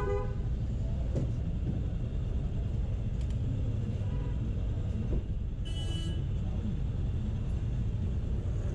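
Steady low rumble of road traffic and vehicle engines, with a car horn sounding right at the start and a short high tone about six seconds in.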